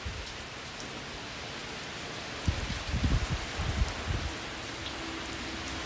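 Steady rain falling around a wooden covered patio, an even hiss of rainfall. A cluster of low thumps comes in about halfway through.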